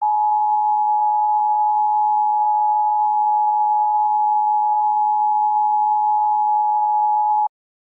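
Emergency Alert System attention signal: a steady two-note tone, the 853 Hz and 960 Hz pair sounding together, held for about seven and a half seconds and then cut off abruptly. It announces that an emergency alert message follows.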